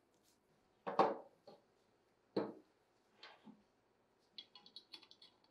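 Gloved hands handling and fitting a small part into an airgun's receiver housing: two louder brief handling knocks, a few softer ones, then a quick run of light clicks near the end.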